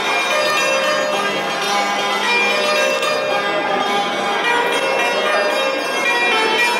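Persian santur, a 72-string hammered dulcimer, struck with two small mallets held between the fingers, playing a continuous stream of ringing, overlapping notes.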